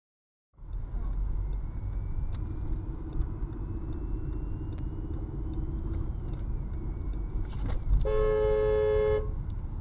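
Low road and engine rumble inside a moving car, the sound cutting in about half a second in. Near the end a two-tone car horn sounds once for about a second, a warning honk at a car that came too close.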